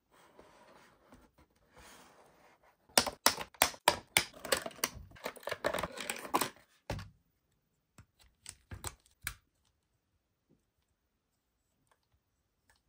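Plastic toy packaging being handled: dense sharp clicks and crackles as a plastic figure is worked free of its clear plastic tray, one heavier knock about seven seconds in, then a few lighter clicks.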